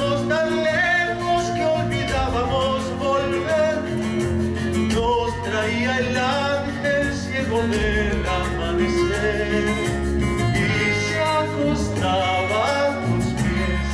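A man singing into a handheld microphone over instrumental accompaniment, holding long notes with a wavering vibrato.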